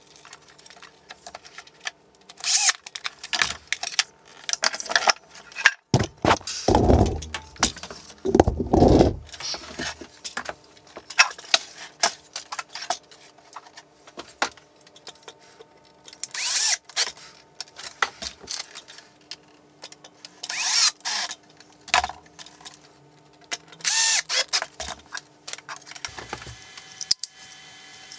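A cordless drill runs in two short bursts about two seconds apart. Around them are intermittent rustling, clicks and clatter of cable and small parts being handled.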